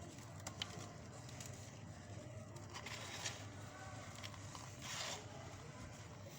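Hardened pure cement crunching and crumbling, with scattered small crackles and two louder gritty crunches about three and five seconds in.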